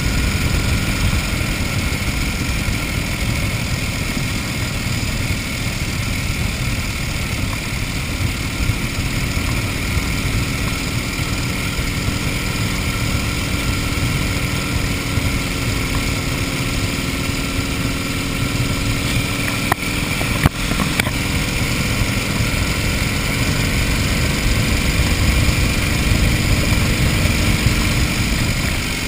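1931 Indian 101 Scout's flathead V-twin engine running steadily as the motorcycle cruises at road speed. A couple of sharp clicks come about twenty seconds in.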